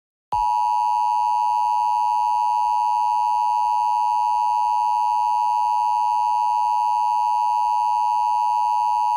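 Emergency Alert System attention signal: a loud, steady two-tone alarm near 1 kHz, held without a break after starting a moment in. It announces that an emergency alert message follows.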